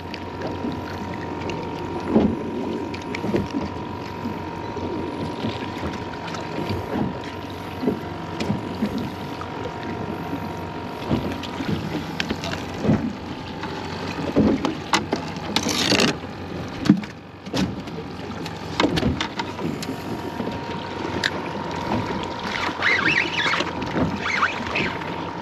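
Water slapping against the hull of a small fishing boat, with scattered knocks and thumps of gear and a fish being handled on the deck, over a faint steady hum.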